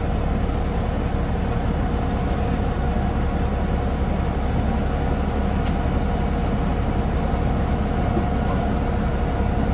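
Concrete mixer truck's diesel engine running steadily, heard from inside the cab as a constant low hum with a faint steady whine over it.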